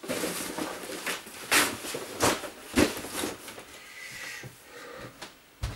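Objects being handled and put away: rustling with a series of sharp knocks, the loudest near the end.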